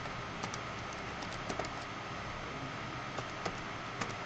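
Computer keyboard typing: a dozen or so short key clicks in quick, uneven succession over a steady background hiss.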